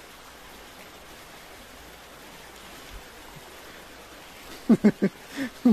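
Steady rush of a shallow flowing stream.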